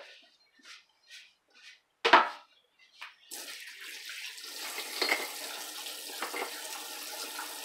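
A few short wiping scrapes of a cloth and one sharp knock about two seconds in, then a kitchen tap is turned on and runs steadily into a stainless steel sink, splashing over a plastic cutting board, with a few light clatters as the board is handled.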